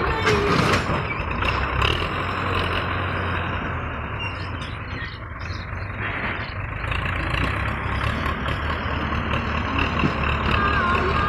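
Diesel engines of two farm tractors, a Belarus and a Massey Ferguson, running under load as they haul a sand-loaded trolley, easing briefly about halfway.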